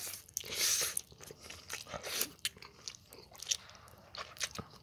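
Close-up chewing and mouth noises of a person eating spicy Buldak stir-fried ramen with cheongyang chilies. There are irregular wet clicks and a few short hisses of air, the loudest about half a second in.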